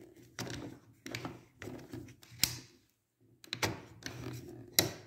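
The two-speed gear selector knob on a Steinhaus Pro-MX1400X paint and mortar mixer being turned by hand while the motor is off: a string of plastic clicks and clunks, about half a dozen, the sharpest about halfway through and near the end, with handling noise between them.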